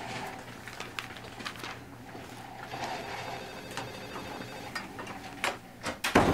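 Quiet hospital-room ambience with scattered soft clicks and rustles and a telephone ringing faintly in the background around the middle; a short, loud burst of noise comes near the end.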